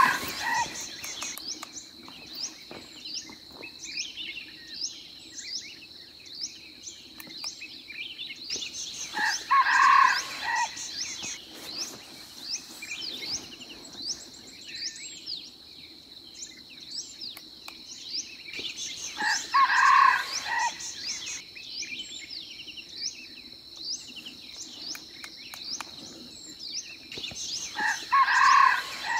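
Jungle fowl rooster crow played from a handheld phone as a lure for wild roosters, repeating about every ten seconds. Small birds chirp and an insect drones steadily behind it.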